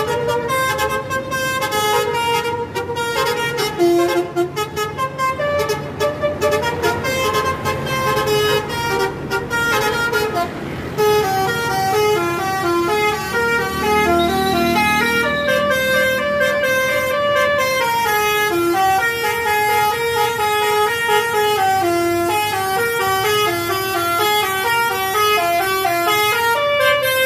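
Telolet horn on an Indonesian night bus, a set of multi-tone air horns, playing a tune of stepped notes that runs on without a pause.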